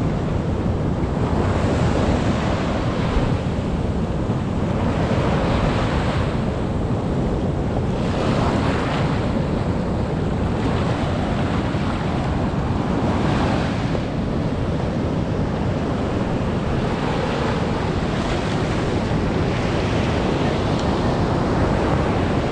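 Sea waves washing ashore, with wind rumbling on the microphone. The hiss of the surf swells and fades every second or two.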